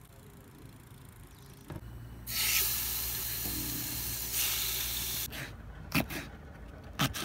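Raw chicken sizzling in hot oil in a steel frying pan for about three seconds, followed by a knife chopping a yellow pepper on a cutting board, three sharp knocks about a second apart.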